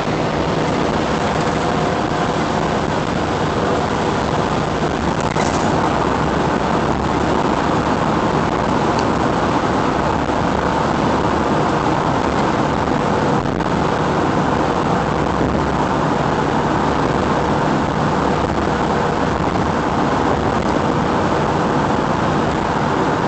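Steady road noise inside a car's cabin at highway speed: an even rush of tyres and wind with a low engine hum underneath.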